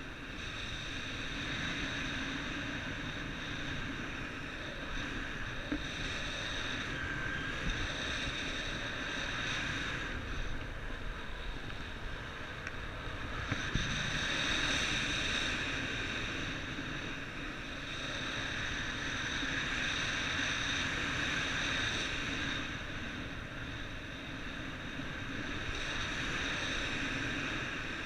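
Steady wind rushing over the microphone, swelling and easing in slow waves, with a faint high whine running through it.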